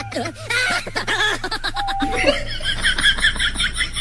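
A person laughing: short snickers at first, then from about halfway a rapid, high-pitched cackle of quick repeated notes.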